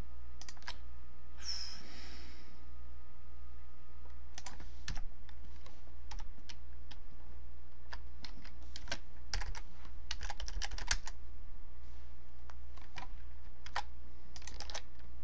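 Typing on a computer keyboard: scattered keystrokes, with a quick run of them about nine to eleven seconds in, over a steady low hum.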